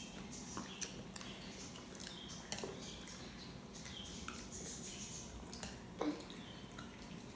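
Faint, scattered clicks and taps of wooden chopsticks picking at rice in a ceramic bowl and on a steel plate, over a low steady hum.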